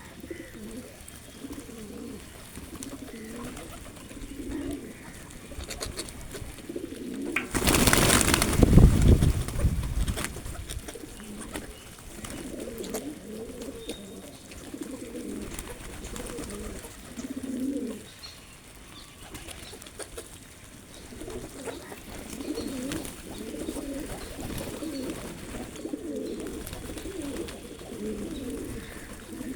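Pigeons cooing again and again in low, throaty calls. About eight seconds in, a loud noise lasting a couple of seconds covers them.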